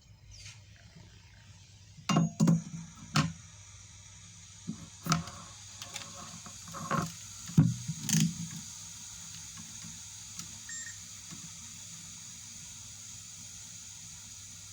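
A series of sharp clicks and knocks of tools and probes being handled on a workbench, then a short multimeter continuity beep about three-quarters of the way through.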